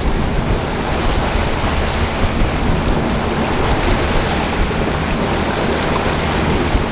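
Bass boat running at speed over choppy water: steady wind buffeting the microphone over the rush of water along the hull and the outboard's drone.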